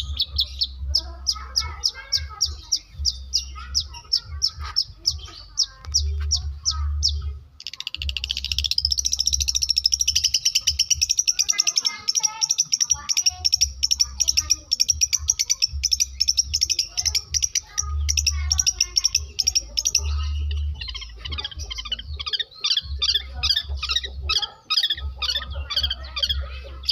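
Long-tailed shrike (cendet) singing a fast, high-pitched run of repeated chirps and trills that mimic lovebird and canary song. A dense, rapid trill runs from about 8 to 20 seconds in, and chopped chirp phrases come before and after it.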